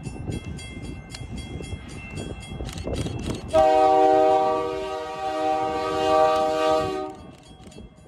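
A mechanical railroad crossing bell striking about four times a second over the low rumble of a passing train. About three and a half seconds in, the lead locomotive, a CP AC4400CWM, sounds its air horn in one long chord of about three and a half seconds, the loudest sound, and the bell keeps ringing after it.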